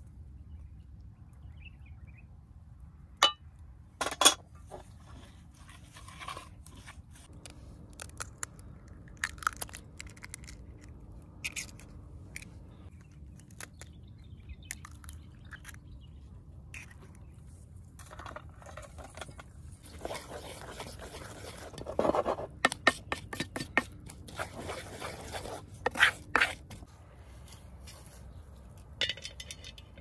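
Food preparation at an aluminium mixing bowl: sharp taps and clinks against the metal, small scrapes, and a stretch of quick mixing strokes about two-thirds of the way through as flour, eggs and chopped vegetables are worked together.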